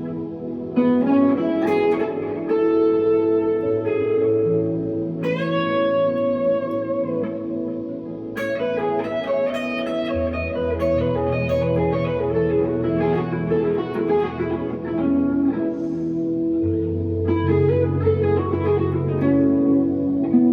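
1963 Fender Telecaster electric guitar playing a slow melodic line with a note bent upward about five seconds in. Sustained low bass notes sound underneath.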